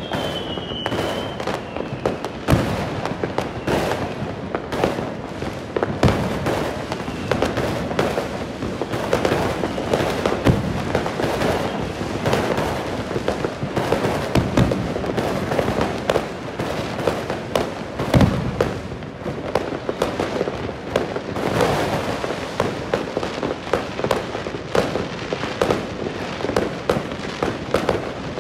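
Many fireworks and firecrackers going off all over a city at once: a dense, unbroken crackling and banging with no pause. A short falling whistle sounds near the start.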